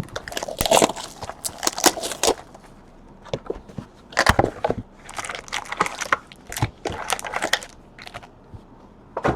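Trading card packaging being torn open and crinkled by hand, in irregular bursts of crackling with short pauses.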